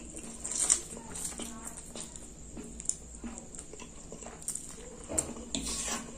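Slurping instant fried noodles (mie goreng) and chewing, with wet mouth smacks and small clicks. The loudest slurp comes less than a second in.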